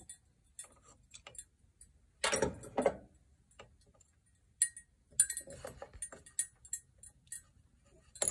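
Small metallic clicks and clinks from a steel ingot mold being handled and set down, with a louder rattle of handling about two seconds in and more scattered clicks later.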